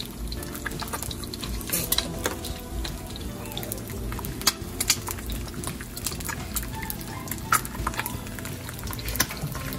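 Kitchen utensils clinking and scraping against pans and dishes, in scattered sharp clicks and knocks.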